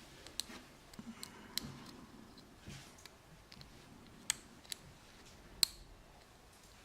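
Lock pick and tension wrench working the pins of a BKS five-pin lock cylinder: small sharp metallic clicks and light scraping at irregular intervals, the loudest clicks about four and a half and five and a half seconds in.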